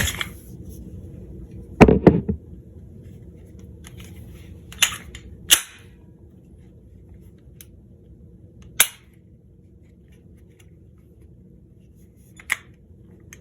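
Sharp metallic clicks and clacks of a pistol being taken apart, its slide coming off the frame: about six separate clicks spread out, the loudest about two seconds in.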